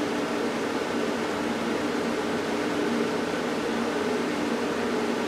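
Welder's cooling fan running with a steady hum and hiss, the machine powered up on 220 V.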